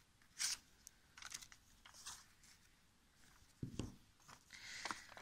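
Scissors snipping through thin red paper in a few short cuts, then the paper rustling as it is handled, with a dull knock a little past the middle.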